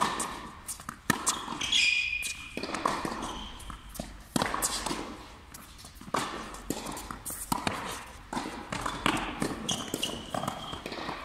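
Tennis rally on an indoor hard court: sharp racket strikes and ball bounces every second or two, with reverberation. Short high squeaks, from sneakers on the court, come about two seconds in and near the end.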